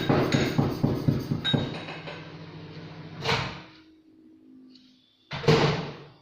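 Microwave oven running with a low hum and a rapid rattle, which stop about three and a half seconds in; a loud clunk near the end, as of its door being opened.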